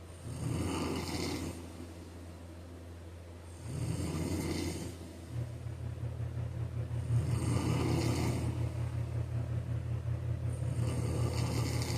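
A person snoring in sleep, with four breaths at an even pace about three and a half seconds apart. Under them runs a steady low hum that gets louder about five seconds in.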